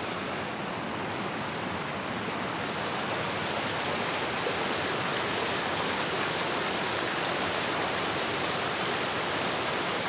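Creek water rushing over rocks and a small waterfall pouring between boulders into a pool: a steady rush of water that grows a little louder about three seconds in.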